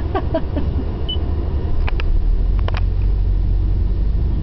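Steady low road and engine rumble inside a moving car's cabin, with a couple of short sharp clicks about two and nearly three seconds in.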